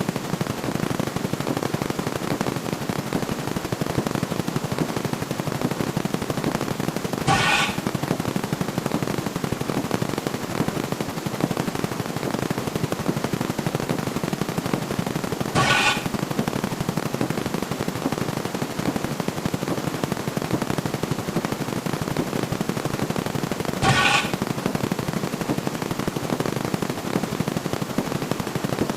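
Counting sound effects fired so fast that they run together into a continuous machine-gun-like rattle, with a short pitched chime-like sound cutting through about every eight seconds.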